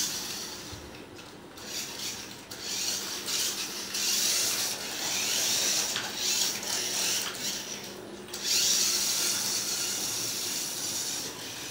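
Toy remote-control car's small electric motor whirring as it drives and drifts across the floor, with the tyres scrubbing; the sound swells and fades in several bursts as the throttle is worked.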